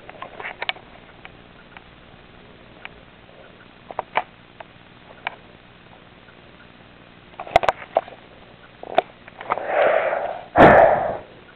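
Scattered small clicks and rustles, then two loud, breathy sniffs about a second apart near the end.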